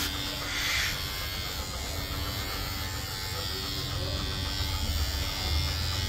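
Electric pet hair trimmer buzzing steadily as it clips a golden retriever's long, thick coat.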